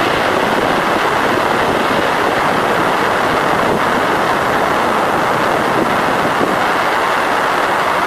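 Voyager plasma-wave recording from around Jupiter played as sound: a dense, steady hiss with a faint thin steady tone running through it.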